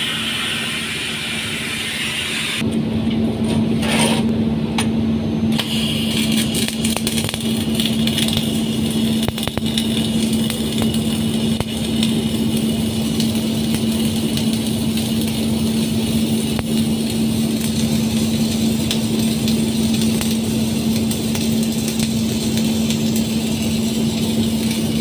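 Arc welding: a steady electrical hum from the welding equipment under a continuous crackle, with the hum stepping up about two and a half seconds in.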